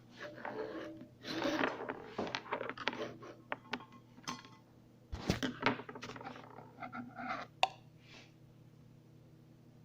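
Irregular clicks, scrapes and knocks of small motor parts and tools being handled during repair, with a sharper knock about five seconds in, stopping about eight seconds in. A faint steady hum runs underneath.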